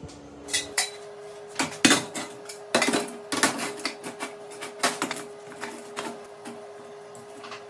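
Metal parts clanking and clinking together irregularly, about a dozen sharp knocks with a faint steady hum underneath.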